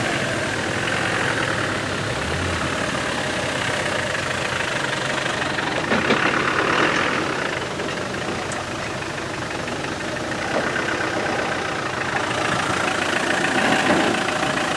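Land Rover 4x4 engines running at low revs as the trucks crawl over a rough trail, getting a little louder about six seconds in and again near the end.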